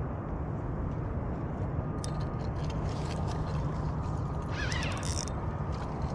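Spinning reel being wound against a hooked striped bass, giving bursts of ratcheting clicks about two seconds in and again near five seconds, over a steady low rumble.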